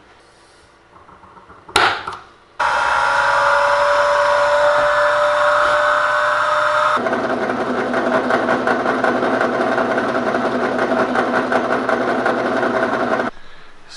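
A click, then a small benchtop milling machine's spindle starts abruptly and runs with a steady whine. About halfway through, the sound turns rougher and noisier as the cutter mills a slot in a thin insulating sheet, then it stops shortly before the end.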